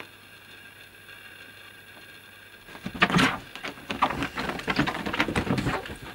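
Cats scrabbling and pouncing on a white sheet: a quick flurry of rustling and scratching with sharp clicks. It starts about three seconds in and lasts about three seconds.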